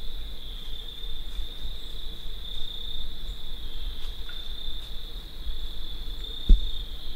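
Steady high-pitched chorus of crickets trilling without a break, over a low rumble. A single thump about six and a half seconds in.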